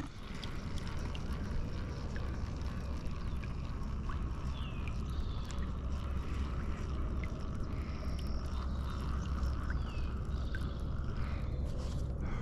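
Water sloshing and gurgling around a kayak's hull on a calm river, over a steady low rumble, with a few short bird chirps.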